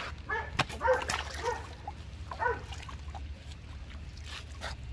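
A few short dog-like yelps and barks, spaced out over the first two and a half seconds, over a steady low hum.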